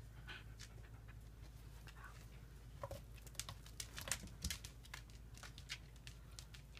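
Cat clawing and pawing at a rope-wrapped scratching post: a string of short scratchy rasps and ticks, thickest a few seconds in.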